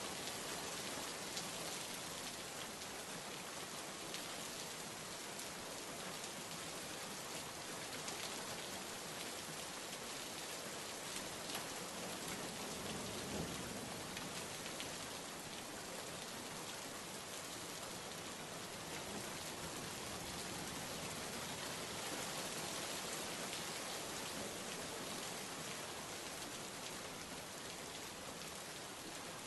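Steady rain falling, an even hiss of raindrops without a break.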